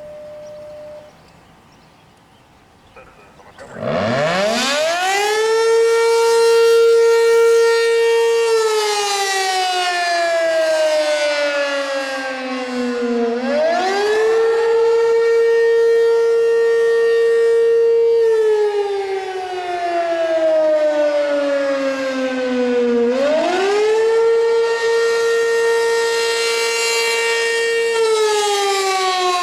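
ACA P-15 fire siren starting up about four seconds in and winding quickly up to a high steady pitch. It then wails slowly, holding high for several seconds, sliding down and sweeping back up about every ten seconds: the Attack signal.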